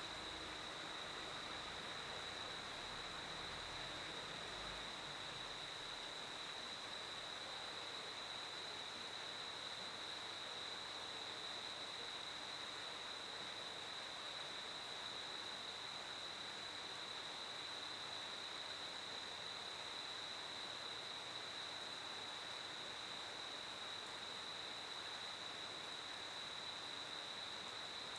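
Cricket chirping as a steady, unbroken high trill over a faint background hiss.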